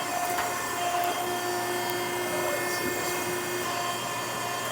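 Okamoto ACC-124N hydraulic surface grinder running, its grinding-wheel spindle and hydraulic pump making a steady whine over a hum. About three and a half seconds in, one lower tone in the whine drops away and a higher one comes in.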